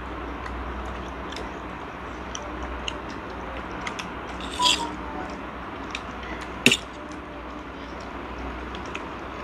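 Table-side eating sounds: scattered light clicks of a fork against a plate and food being handled, with a short scrape about four and a half seconds in and a sharp clink just before seven seconds, the loudest sound, over a steady low background hum.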